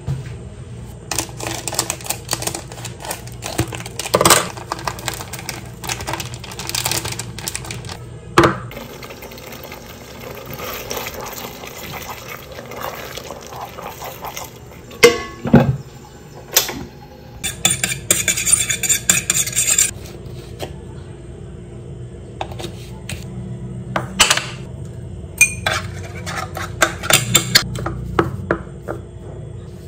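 Kitchen sounds of cooking: scattered clinks and knocks of utensils on plates and a pot, with a wooden spoon stirring a thick stew.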